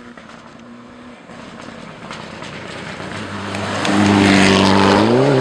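Rally car approaching at high speed and passing close, growing steadily louder to its loudest about four seconds in, with a steady engine note and a brief rise in revs near the end.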